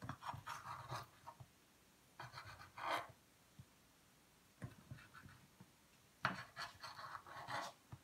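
A knife sawing through a baked chicken pizza crust and scraping on the stoneware pizza stone beneath, in four short bouts of scratchy cutting.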